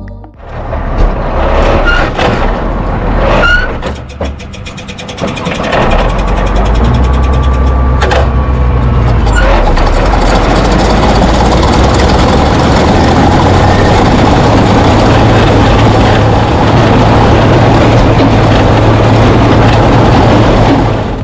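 Tractor engine running with a hay baler working, a loud steady machine noise. There are a few brief squeals in the first few seconds before it settles into a continuous run.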